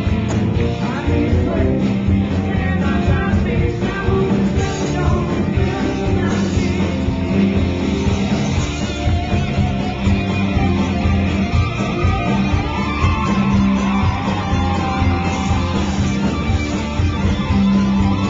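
Live rock band playing loud, with electric guitars and drums, heard through a pocket camcorder's microphone. Gliding guitar or vocal lines stand out about two-thirds of the way through.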